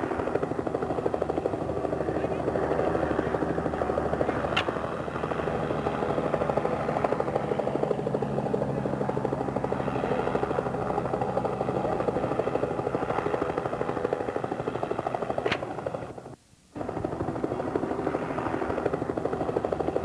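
Steam locomotive running, a dense, fast, steady pulsing of exhaust beats, from a dubbed sound-effects recording. The sound drops out for about half a second about three-quarters of the way through.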